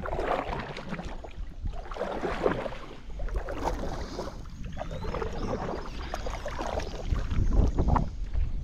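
Kayak paddle dipping and splashing in water, with repeated strokes, over a low rumble of wind on the microphone.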